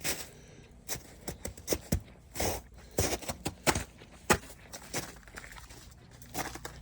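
Footsteps crunching over ice-covered ground and storm debris: a run of irregular crunches and snaps, the sharpest about four seconds in.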